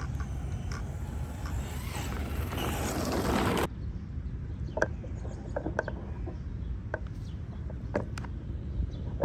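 Electric RC short-course truck driving over the dirt, its motor and tyres growing louder for the first few seconds, then cutting off abruptly. After that, a quieter stretch with scattered light clicks and chirps over a low rumble.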